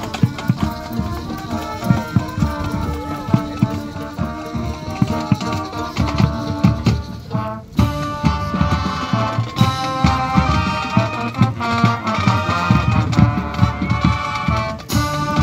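A college marching band playing live on the field: brass (trumpets, mellophones, baritones and sousaphones) over bass drums and percussion. The music breaks off briefly about halfway through, then comes back in full.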